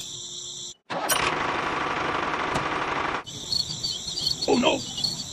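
Insects trilling steadily, broken by an abrupt cut, then about two seconds of a loud, rapid rattling buzz, after which the insect trill returns with a brief lower sound near the end.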